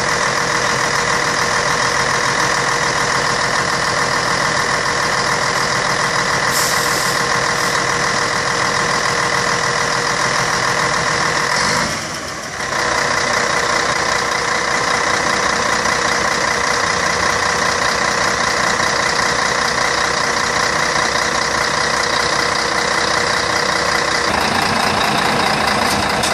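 Scania K113 coach's rear-mounted six-cylinder diesel running steadily at idle with its engine hatch open, with a brief drop in level about twelve seconds in.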